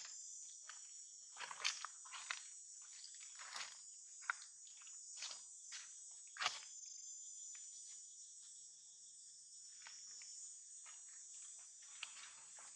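A steady, high-pitched insect drone, with scattered short crackles and rustles of dry leaves and dirt as the monkeys move over the ground; the sharpest crackles come about two, three and a half, and six and a half seconds in.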